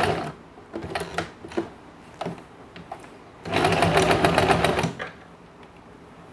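Usha sewing machine stitching through fabric in short runs: a brief burst at the start, a few single stitches, then a run of rapid even stitches lasting about a second and a half before it stops.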